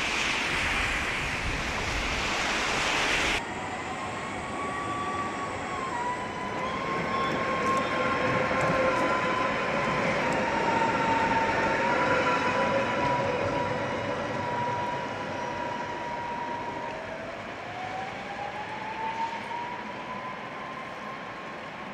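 Tatra T3-type electric tram running on wet track in the rain: a dense hiss of rain and wet street for the first few seconds, then, after a sudden change, the tram's electric motor whine as a steady high tone that dips once and glides back up in pitch near the end as the tram picks up speed.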